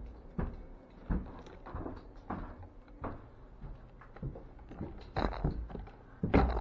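Footsteps climbing stairs: about ten steps, roughly one every two-thirds of a second.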